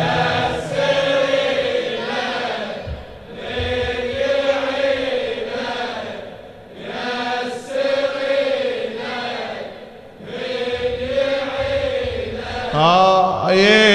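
Layered male voices chanting a Husseini elegy (latmiya) refrain in four swelling phrases of about three seconds each, the chorus backing between the lead reciter's lines.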